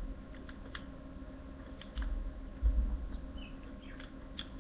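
A plastic ballpoint pen being handled and pressed: a few light, scattered clicks, with two low knocks against the table about two seconds in.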